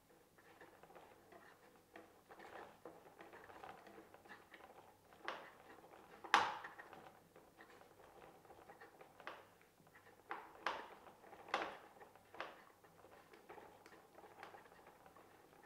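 Hands handling the foam model airplane and its small plastic parts: faint scattered clicks and taps. There is a sharper knock about six seconds in, and a few more knocks around eleven to twelve seconds.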